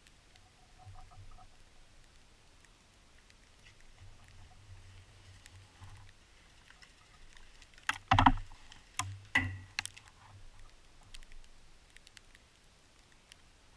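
Close knocks and clatters near the microphone: a loud cluster about eight seconds in and a few more sharp knocks about a second later, among faint scattered ticks.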